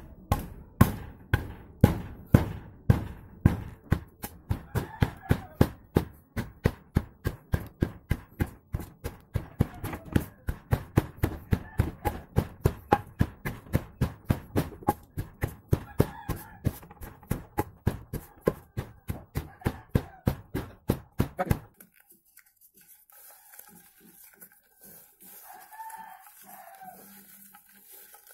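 Cassava being pounded with a stick in a hard container: steady knocks, about two a second, that stop about three-quarters of the way through.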